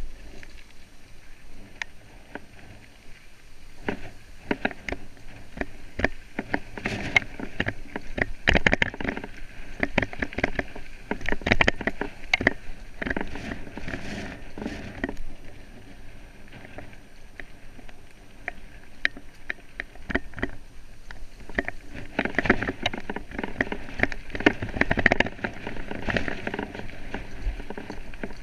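Off-road vehicle rattling and clattering over rough trail, with dense irregular knocks and jolts. The clatter grows heavier in two spells, the first a quarter of the way in and the second near the end.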